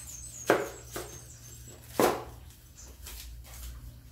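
Paper receipt being handled and unfolded, crinkling, with two sharp crackles about half a second and two seconds in and fainter rustles after.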